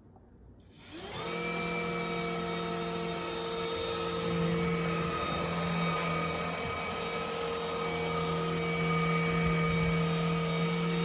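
Roidmi X30 Pro cordless stick vacuum switched on about a second in, its motor spinning up quickly, then running steadily with a whine over the hiss of its airflow.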